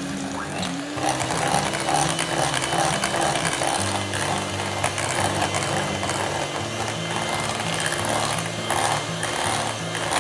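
Electric hand mixer running at slow speed, its beaters whirring through chocolate muffin batter with small clicks against the glass bowl; the motor's pitch rises about half a second in.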